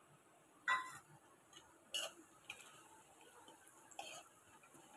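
A metal utensil tapping and scraping against a steel kadhai as vegetables and spice powder are stirred: four light clicks at uneven intervals, the first the loudest.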